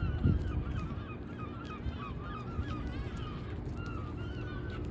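A flock of waterbirds calling over and over in short, rising-and-falling cries, over a steady low rumble of wind and water. A single low thump sounds about a third of a second in.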